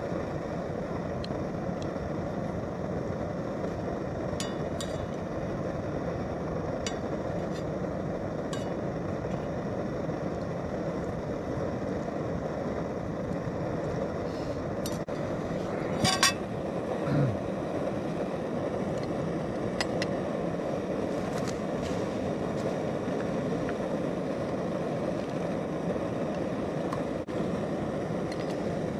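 Primus Omnifuel stove burner running under a coffee kettle, a constant rushing noise. Over it come a few light clinks and scrapes of a fork on a metal frying pan, with a louder clatter about sixteen seconds in.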